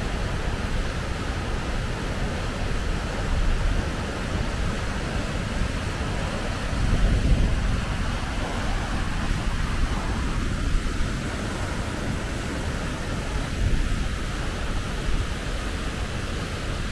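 Fast-flowing whitewater creek rushing over rocks, a steady roar of water, with wind buffeting the microphone in gusts that swell about seven seconds in.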